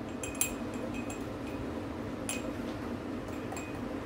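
Steel spoon clinking against a drinking glass a few times, light separate ringing clicks as biscuit crumbs are spooned into the glass.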